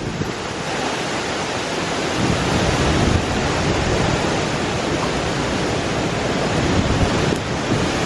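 Hurricane wind and rain lashing palm trees, a steady rushing noise that grows louder over the first few seconds, with gusts buffeting the microphone.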